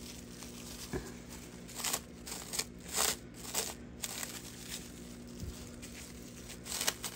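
Plastic cling wrap crinkling in irregular bursts as it is pulled and wrapped tightly around a burrito.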